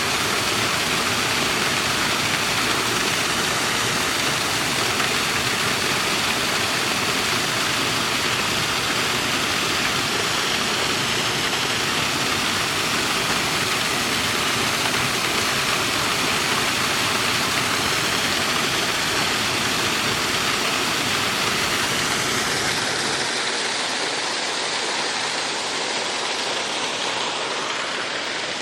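Waterfall pouring: a loud, steady rush of falling water. About 23 seconds in the deepest rumble drops away, leaving a lighter hiss.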